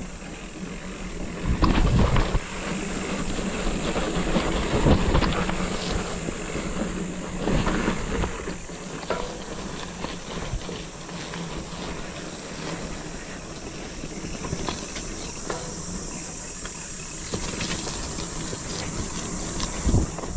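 Mountain bike being ridden fast down a dirt forest singletrack: a continuous rushing hiss with the clatter and rattle of the bike over roots and bumps, heaviest about two and five seconds in.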